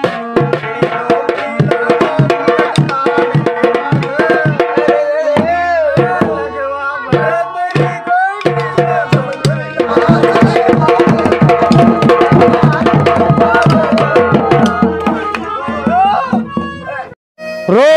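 Traditional Indian music with rapid tabla drumming under a pitched melody. The music dips briefly about eight seconds in and cuts out for a moment just before the end.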